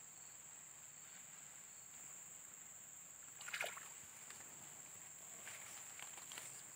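Faint, steady, high-pitched insect trill, with one brief noise about halfway through.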